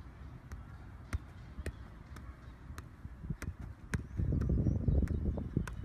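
Football being juggled: a light knock at each touch of foot or leg, about two a second. A low rumble joins in over the second half.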